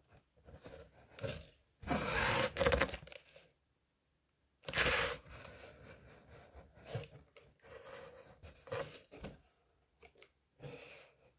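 Cardboard box scraping and rustling in irregular bursts, the loudest about two seconds in and again about five seconds in.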